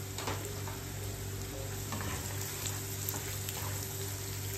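Sliced onions and dried red chillies sizzling steadily in hot oil in a non-stick frying pan, with a few light scrapes as a spatula stirs them.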